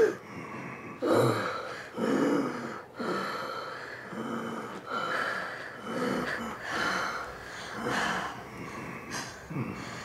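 A person breathing hard in ragged gasps, about one a second, some of the breaths voiced with a short groan.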